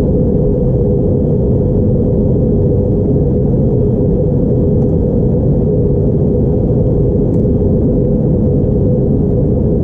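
Steady in-flight cabin noise of an Airbus A321neo heard beside the wing: a low, even rumble of CFM LEAP-1A turbofan engine and airflow noise, with a steady hum in its middle and a faint high whine.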